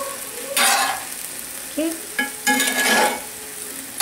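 Spatula stirring chickpeas in sweet-and-sour sauce in a cast iron skillet, with two loud scraping sweeps, one about half a second in and a longer one around the three-second mark, over a steady sizzle of the sauce cooking down.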